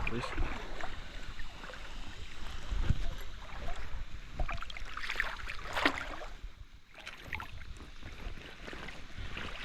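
Rushing water of a creek running high, with a low wind rumble on the microphone and a few scattered small knocks.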